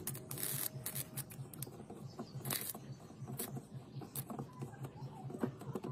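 Electric arcing from a homemade battery-powered soldering/welding rig as its electrodes touch a metal tab on a circuit board: irregular sharp snaps and crackles, with a short sizzling burst about half a second in, over a low pulsing hum.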